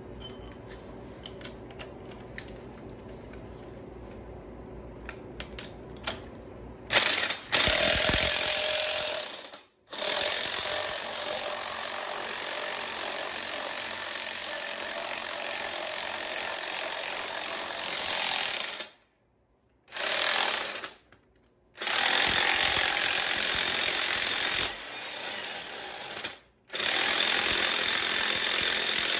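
Impact wrench hammering in several long bursts with short pauses between them, after a few seconds of light clicks from tools being handled.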